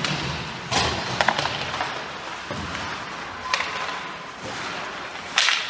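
Ice hockey play: a handful of sharp knocks and thuds of puck, sticks and boards, the loudest near the end, over a steady rink hiss.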